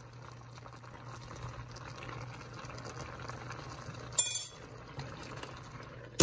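Vegetables simmering in chicken broth in a pan, a steady bubbling hiss over a low hum, with a short metallic clink about four seconds in and a glass lid set down on the pan with a clack at the very end.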